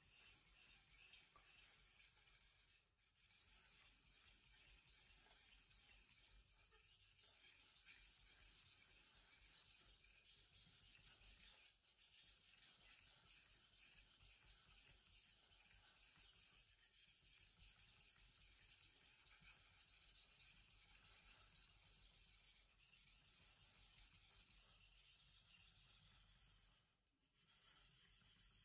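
Faint, steady scraping of a Deba knife blade stroked back and forth on a wet King 800 whetstone, broken by brief pauses about three seconds in, near the middle, and near the end.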